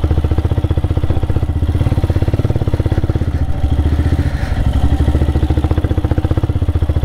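Motorcycle engine running with a rapid, even beat, its level steady throughout.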